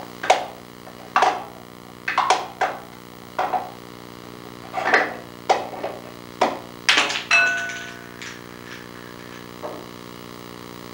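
A parakeet knocking and rattling the small wooden drawers of a wall-mounted chest: about ten sharp wooden clacks over eight seconds, irregularly spaced. One clack, a little after seven seconds, is followed by a short ringing tone, as of a small metal object striking the wood.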